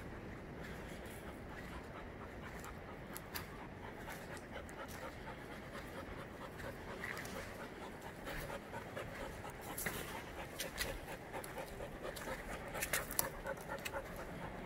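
Rapid, rhythmic panting close to the microphone, with scattered sharp clicks and scuffs that grow more frequent in the second half.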